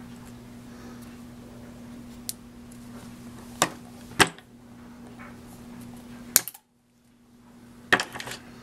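Pliers cutting and working the wire armature sticking out of a clay dog's head: about five sharp metallic clicks and snaps spread over several seconds, over a steady low hum.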